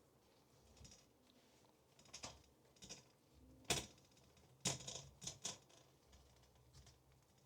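Faint kitchen handling noise: a few sharp taps and clicks, bunched in the middle, as a shaker of dry rub is worked over bacon-wrapped pasta shells and the shells are turned.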